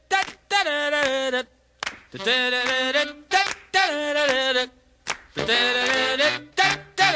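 A cappella singing in short phrases, with sharp hand claps or snaps in the pauses between phrases, as a song begins.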